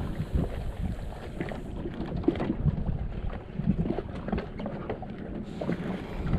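Wind buffeting the microphone on a small fishing boat, with water against the hull and scattered small knocks.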